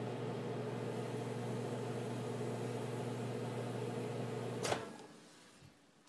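Microwave oven running with a steady electrical hum. A sharp click comes near the end as the door is popped open, and the hum dies away.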